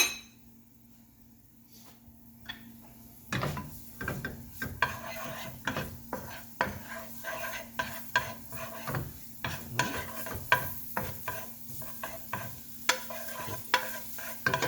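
Garlic frying in a tablespoon of oil in a pan, stirred with a utensil: one clink at the start, then from about three seconds in repeated stirring and scraping strokes against the pan over a light sizzle.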